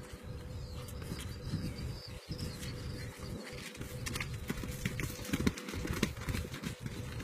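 Wind rumbling on the microphone, with the thuds of horses' hooves as they trot on wet grass, most of them from about four seconds in.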